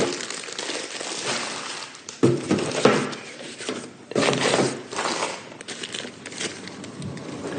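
A plastic bag crinkling and rustling as clothes are handled in a box, with a couple of sharper knocks about two and four seconds in.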